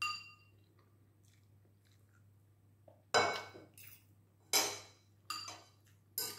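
Metal fork and spoon clinking and scraping against a plate: one sharp clink at the start, then four or five more from about three seconds in, each with a short ring.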